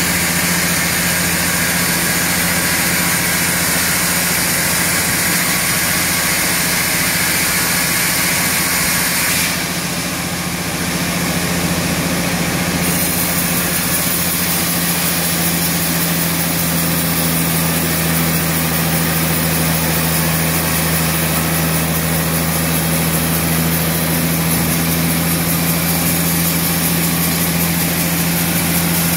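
Large band sawmill running steadily, its blade cutting lengthwise through a dry tamarind log: a constant hum under a hissing cutting noise. The hiss dips for a few seconds about ten seconds in, then carries on.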